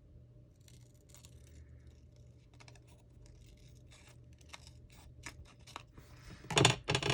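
Scissors snipping through paper in a run of short crisp cuts, with a louder flurry of snips near the end.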